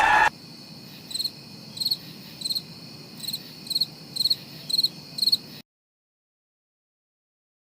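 Cricket chirping: about eight chirps less than a second apart over a steady high trill, cutting off abruptly to dead silence about five and a half seconds in.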